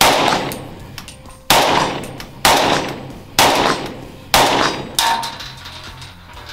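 StG-44 assault rifle firing six single shots, roughly a second apart, the last two closer together, each shot trailing off before the next.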